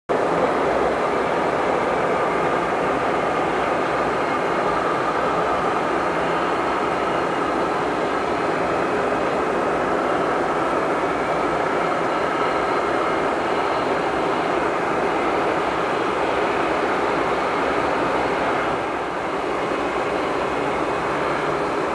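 Boeing 737-800's CFM56-7B turbofan engines running at taxi power: a steady jet rush with a faint high whine.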